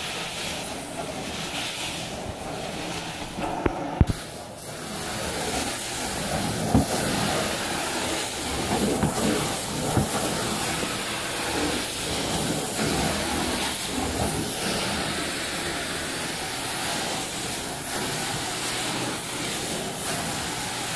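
Carpet extractor's vacuum running steadily while the cleaning wand is drawn over wet carpet, with a hiss of air and rinse water sucked through the wand head. A few sharp clicks come about four seconds in.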